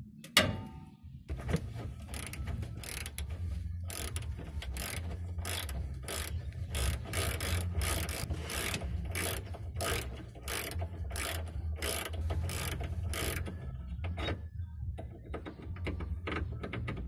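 Socket ratchet clicking in a steady rhythm, about two clicks a second, as the 19 mm bolt holding the front lower control arm to the crossmember is backed out. There is a single sharp knock about half a second in, and the clicking thins out and stops near the end.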